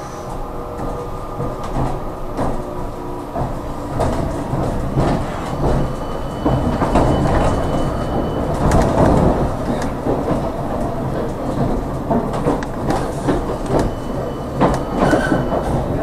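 Tram running along its track: steady wheel-on-rail rumble with repeated clicks, getting louder a few seconds in. A steady whine fades out in the first few seconds.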